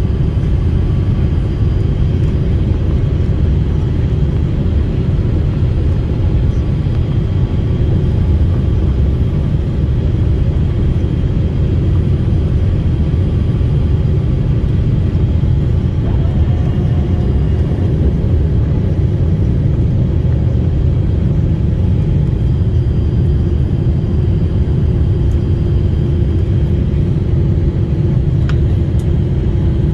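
Passenger airliner heard from inside the cabin: a steady, loud low rumble of engines and airflow that holds even throughout.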